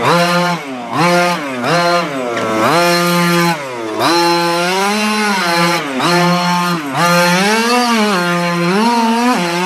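Gas-powered RC truck's two-stroke engine revving up and dropping back over and over as it is driven, with a few longer held pulls.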